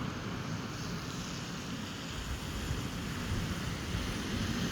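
Steady rushing of wind on the microphone over the wash of sea surf.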